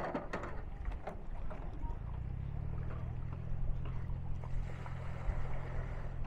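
A small engine running steadily with a low hum. There are a few sharp knocks in the first second, and a rush of noise comes in over the last two seconds or so.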